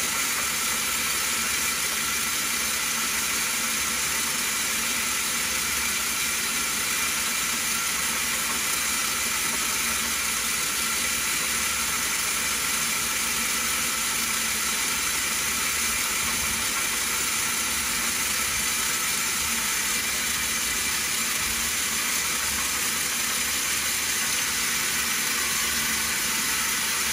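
Stone bead milling machine running steadily: a continuous mechanical whir under the hiss of rough beads and water churning in its pan. The pan is turning when it is meant only to vibrate.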